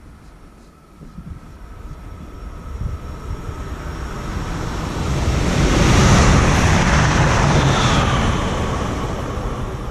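Electric train approaching and passing at speed: rumble and rail noise build up, are loudest about six seconds in, then fade as it goes by, with a faint whine falling in pitch as it passes.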